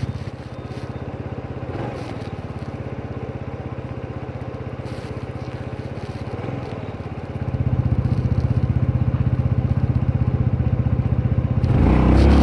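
Motor scooter engine idling with an even low pulse, then revving up with a rising pitch as it pulls away about a second before the end.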